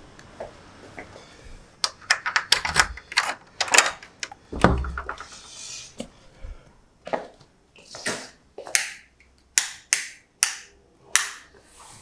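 Footsteps on a hard floor and the clicks and knocks of a door and its latch being handled. A quick cluster of clicks comes a couple of seconds in and a dull thump near the middle, then a string of separate sharp steps in a small room.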